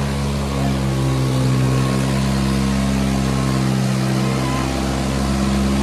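Diesel engines of two tractors, a Kubota 5501 and a New Holland 3600, running hard together under full load as they pull against each other in a tug-of-war, with black smoke from their exhausts. A steady, heavy drone with slight wavers in pitch.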